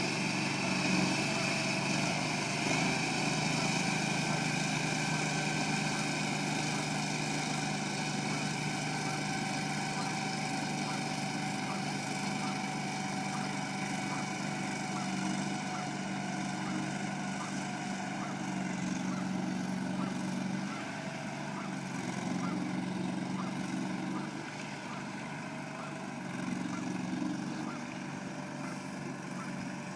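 Argo amphibious ATV's engine running steadily while the vehicle crosses a lake, with a higher whine over the engine note that fades out about halfway through.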